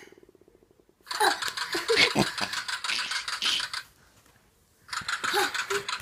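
Rapid rattling clatter of many quick clicks, in a stretch of about three seconds, then again after a second's pause.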